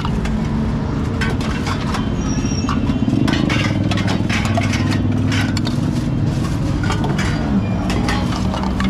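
Street ambience at a food stall: a vehicle engine hums steadily underneath, its pitch shifting slightly near the end, while irregular sharp clicks and clinks, like utensils being handled, sound over it.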